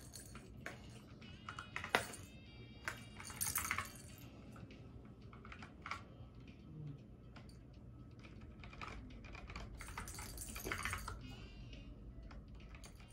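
Hard plastic rattle ball clicking and rattling as a cat hooks it out of a plastic ball-track toy and carries it off: irregular clicks and short clatters, busiest about three seconds in and again near ten seconds.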